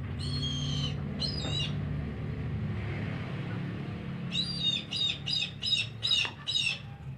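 Eagle giving high-pitched, squealing calls: two longer calls near the start, then a quick run of six short calls about two-thirds of the way through.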